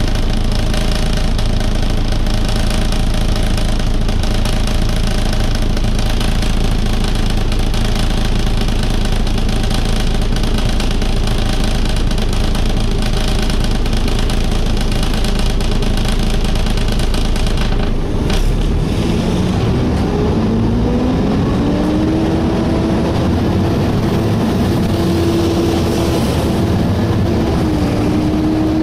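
Volvo B7TL double-decker bus heard from the lower deck: a steady multi-tone hum of the idling engine and its cooling fan. About two-thirds of the way through there is a click, the low hum drops away, and a rising whine follows as the bus pulls away and gathers speed.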